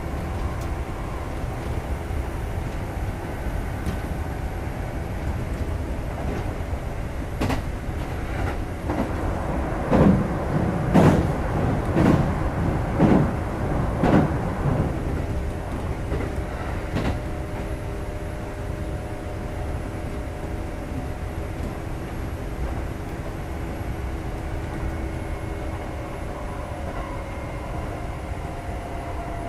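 Onboard running sound of a Kintetsu 2430 series electric train at speed: a steady rumble of wheels and running gear with the drive's steady tones. About ten seconds in comes a run of five heavy clacks about a second apart, typical of the wheels crossing rail joints, with a few lighter single clicks either side.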